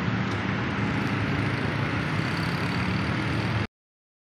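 Traffic: car and motorbike engines running and idling in a steady noisy hum. It cuts off abruptly to silence about three and a half seconds in.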